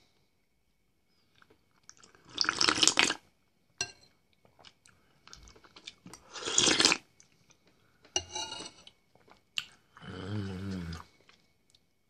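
A man eating soup from a spoon: two loud slurps a few seconds apart, with chewing and small mouth clicks between them. Two short humming, voice-like sounds come from him in the second half.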